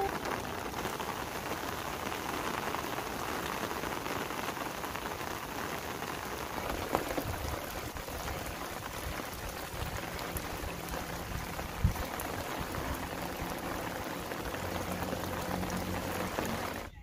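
Steady rain falling on crop leaves and puddled ground, an even hiss of raindrops.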